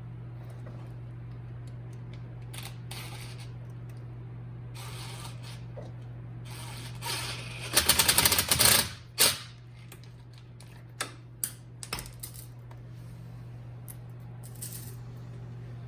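Rapid ratcheting clicks for about a second and a half, followed a couple of seconds later by a few single clicks, over a steady low hum.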